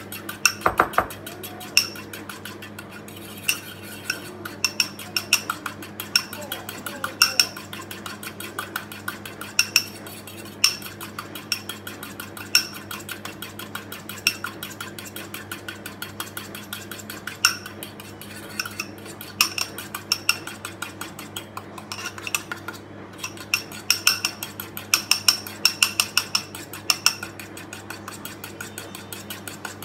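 Metal utensil beating against a ceramic bowl: rapid clinking and scraping in quick runs as instant coffee, sugar and water are whipped by hand for dalgona coffee, the mix not yet frothing. A low steady hum runs underneath.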